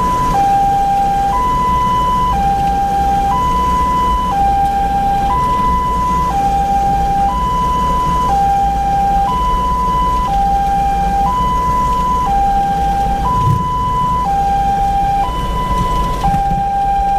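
Ambulance's two-tone hi-lo siren, switching between a higher and a lower tone with each held about a second, heard from inside the cab over steady engine and road rumble.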